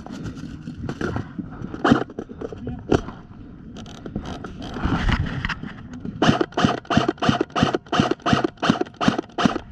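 Scraping and handling noise, then about six seconds in a fast, even run of sharp snaps, about four a second: an airsoft gun fired repeatedly in semi-auto while its magazine is not feeding, so it is dry firing.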